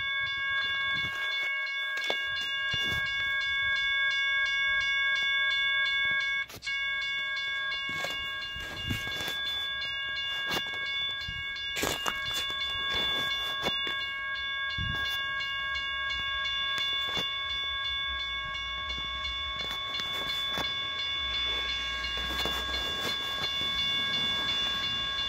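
Railroad crossing signal bell ringing continuously as the signal is activated, a steady metallic ring with several tones, cutting out briefly about six and a half seconds in.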